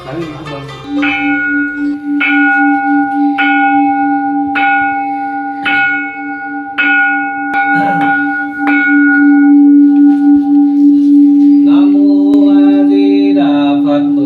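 Large Buddhist bowl bell struck with a wooden striker about eight times, roughly once a second, each stroke ringing on over a steady low hum. Near the end a voice begins chanting over the still-ringing bell.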